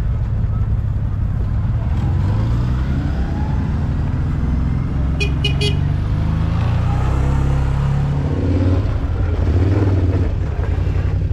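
A motor vehicle's engine running while under way, its pitch rising and falling, with three quick horn toots about five seconds in.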